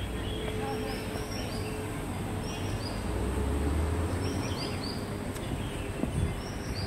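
Small birds chirping in short falling notes, in quick runs of two to four, over a steady rumble of city traffic.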